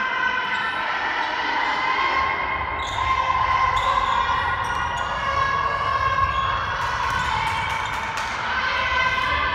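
Handball game sounds on a sports-hall court: the ball bouncing and thudding on the floor and players' feet on the court, with a run of sharp knocks about seven to nine seconds in. A steady high-pitched whine of several tones runs underneath.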